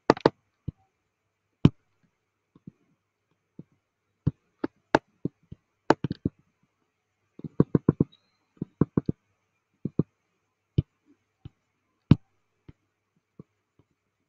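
Computer mouse clicking: sharp single clicks at irregular intervals, with a quick run of several about halfway through.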